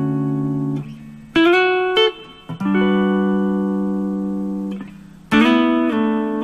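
Guitar played unaccompanied: a ringing chord dies away, then chord shapes are struck with short slides up the neck, and one chord is held for about two seconds in the middle.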